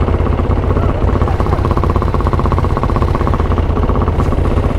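Off-road vehicle engine running steadily with a fast, even beat, holding an even speed without revving.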